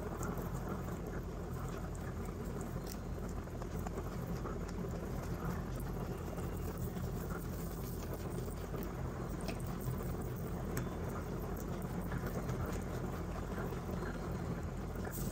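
Two young rabbits munching hay and green stems close to the microphone: a fast, steady crackle of chewing and nibbling, with dry hay rustling as they nose through it.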